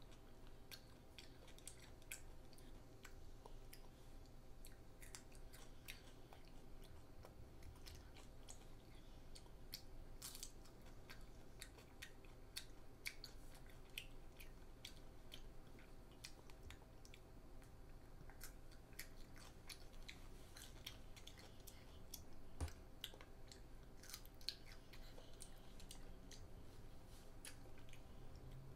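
A child chewing and crunching on raw cucumber slices with her mouth close to the microphone: faint, irregular crisp crunches and mouth clicks.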